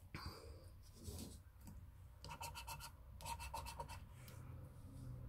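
A scratch card's silver scratch-off coating being scratched away in quick, rapid strokes, faint, with two short runs of scratching around the middle.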